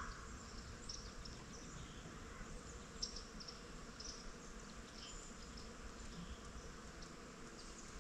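Quiet outdoor ambience: a low steady rumble with scattered faint, short high chirps.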